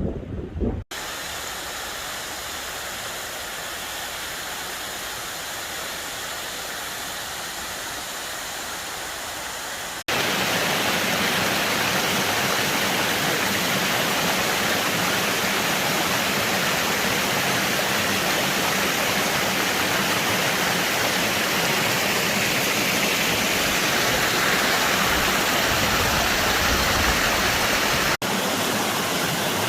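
Steady rush of falling water from a waterfall, in spliced takes: quieter for the first ten seconds or so, then louder, with brief sudden breaks where the takes change.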